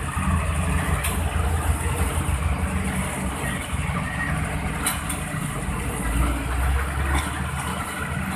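Heavy diesel engines of trucks and road machinery running with a steady low rumble, with a short sharp click about five seconds in.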